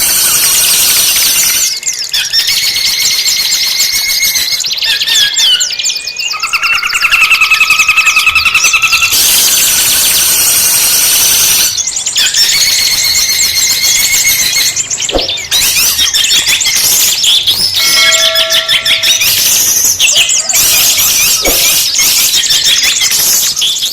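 Kutilang emas bulbul singing: loud, continuous rapid chattering trills mixed with clear whistled notes, with brief breaks about two and twelve seconds in.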